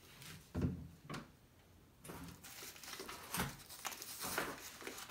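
A dog scampering after a golf ball on a hard floor: two knocks in the first second, then from about two seconds in a continuous run of quick light clicks and scuffs.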